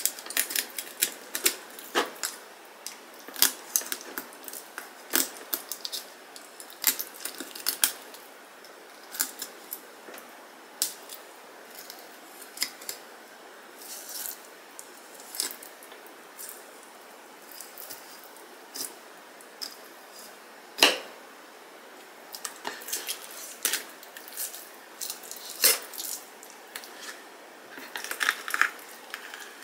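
Kitchen knife filleting a sea bream on a bamboo cutting board: an irregular run of sharp clicks and crunches as the blade works along the backbone and rib bones and knocks on the board.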